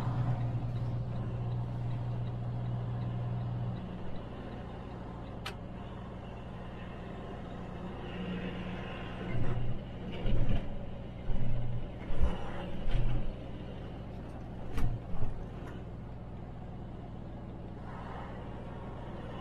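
Semi truck's diesel engine running at low speed, heard from inside the cab. The engine note eases off about four seconds in. Between about nine and fifteen seconds comes a string of loud thumps and knocks.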